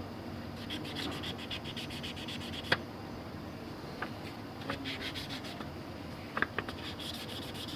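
Quick rubbing and scratching strokes as ink is cleaned off a circuit board's pads, in two short runs, with a few sharp clicks in between.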